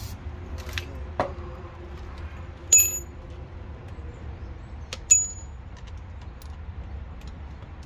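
Two sharp metallic clinks with a brief bell-like ring, about two and a half seconds apart, among lighter ticks and taps, over a low steady rumble.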